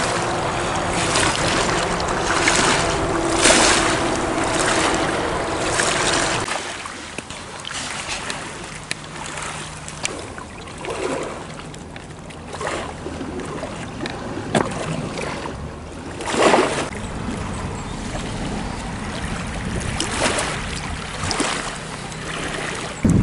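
Small waves lapping and splashing against the rocks at the edge of a choppy lake, a splash every second or two, with wind on the microphone. Steady humming tones run underneath and cut off about six seconds in.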